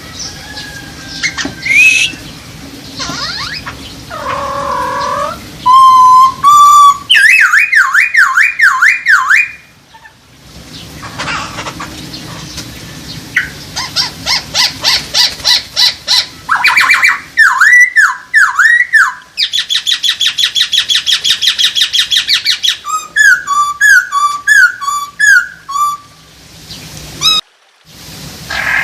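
Poksay hongkong, a laughingthrush, singing loud, varied whistled phrases: swooping slurred notes, then long runs of rapid repeated notes. It breaks off briefly about a third of the way in and again near the end.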